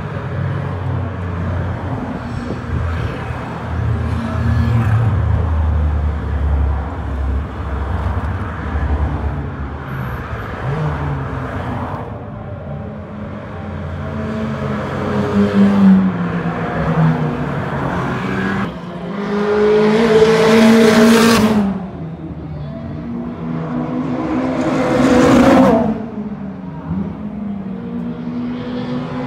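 A line of sports cars driving down a race circuit's straight one after another, their engines swelling and falling away in pitch as each passes close by. There are three loud pass-bys in the second half.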